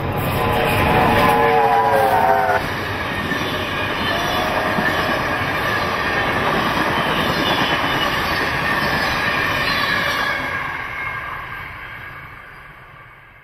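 NSWGR C38-class steam locomotives 3801 and 3830 passing double-headed at speed with their carriages. A multi-note steam chime whistle sounds for about two and a half seconds at the start, with a brief single tone about four seconds in. After that comes the running noise of the engines and carriages on the bridge, fading as the train draws away.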